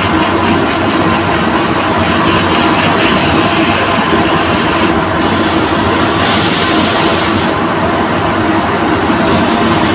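Steady, loud rushing air in a paint spray booth: a gravity-feed spray gun hissing compressed air and paint over the booth's ventilation, laying down a first coat. The highest part of the hiss drops out briefly about halfway through, and again for over a second near the end.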